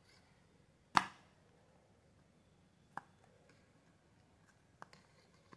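Clear plastic ice-cream tub lid being pried open by hand, giving a sharp plastic click about a second in, a fainter click two seconds later and a few small ticks near the end.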